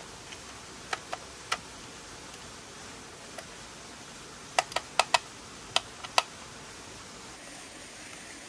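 Sharp clicks of a screwdriver working the small screws of a red plastic battery case, with the tip knocking and slipping on the screws and plastic. Three clicks come about a second in, then a quicker run of six or seven a few seconds later, over a steady low hiss.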